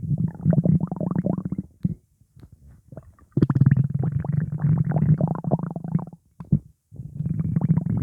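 Human stomach rumbling and gurgling in three long bouts of dense bubbling, with short pauses about two and six seconds in. It is an upset, gassy stomach, which the owner puts down to pizza.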